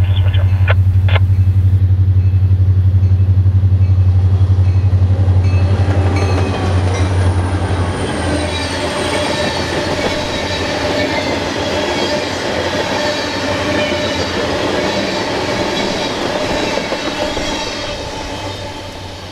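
Freight train passing close by. A diesel locomotive's engine drone is loudest for the first several seconds, then the rail cars roll past with rail noise and thin metallic wheel squeal, fading out near the end.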